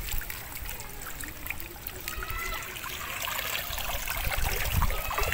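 Water trickling and dripping back into shallow floodwater from a cast net and the weeds tangled in it as the net is hauled up, with water stirring around the wader's legs.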